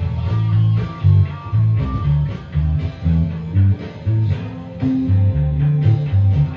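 Electric bass guitar playing a busy line of short, separate low notes along with a rock band recording, with an electric guitar holding a wavering sustained note above for the first two seconds. No singing.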